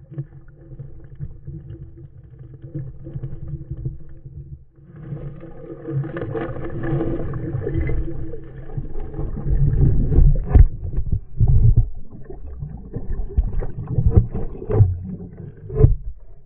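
Underwater sound heard through a GoPro's waterproof housing: a muffled low rumble and sloshing of water as a dog digs and paddles at the stream-bed rocks right by the camera. It grows louder about five seconds in, then gives way to a run of sharp knocks and clacks of stones and of the camera case being jostled.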